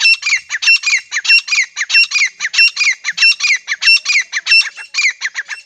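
Grey francolin calling: a loud, fast series of repeated shrill phrases, about one and a half a second, each with a steady high note and downward-sliding notes, stopping just before the end.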